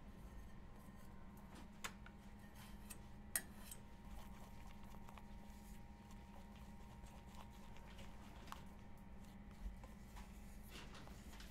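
Faint scraping and a few light taps of a spatula against a small stainless steel bowl as meringue is stirred, over a low steady hum. The loudest tap comes about three and a half seconds in.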